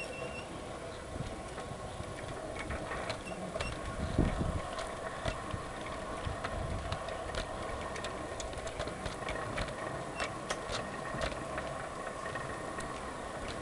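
Garden-scale model train running along its track, heard from on board: a steady electric motor and gear hum with irregular sharp clicks as the wheels cross rail joints and points. A dull low bump about four seconds in.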